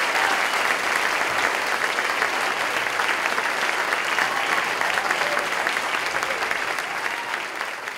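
Audience applauding at the end of a talk, the clapping slowly dying down.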